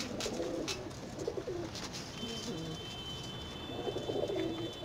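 Domestic fancy pigeons cooing, several birds overlapping in low, warbling calls.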